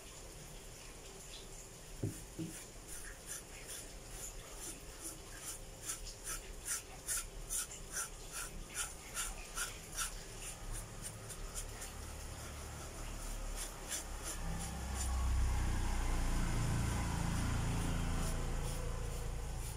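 Paintbrush bristles scrubbing a dry powder back and forth across a tarnished brass plate, in quick rhythmic strokes about two or three a second. Near the end the strokes give way to a louder low rumbling as the plate is handled.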